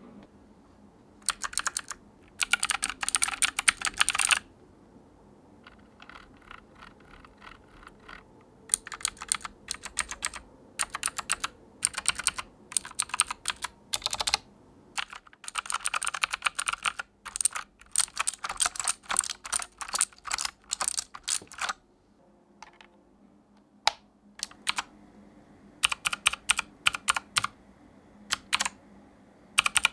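Keys of an AJAZZ K870T mechanical keyboard with blue switches being typed on in quick bursts with short pauses between them, each burst a rapid run of clicky keystrokes.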